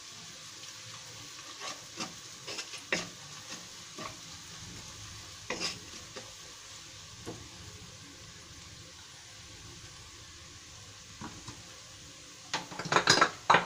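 Sliced onions frying in oil in a non-stick wok, a steady sizzle, as a wooden spatula stirs in turmeric with scattered scrapes and taps. Near the end comes a quick run of loud clatters of utensils against the pan.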